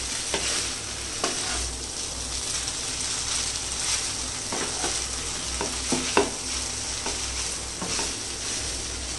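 Chow mein noodles and sausages sizzling in a hot pan while being stirred, with a spatula scraping and knocking against the pan every second or two.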